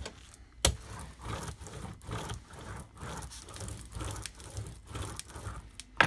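Glued paper being rubbed and smoothed flat in a journal: a sharp tap about half a second in, then repeated soft rubbing strokes, about two or three a second.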